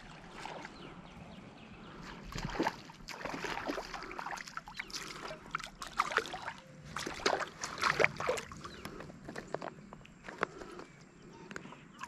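A hooked small smallmouth bass splashing at the water's surface as it is reeled in, with irregular sloshes and knocks, busiest in the middle stretch.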